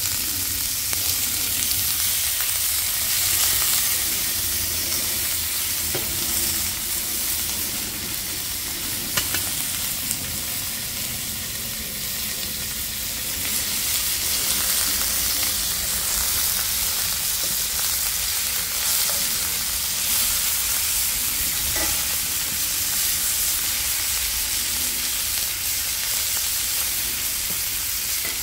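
Strips of beef skirt and striploin sizzling steadily in butter in a hot cast-iron skillet over a small wood-burning stove, with a few light clicks as the pieces are turned.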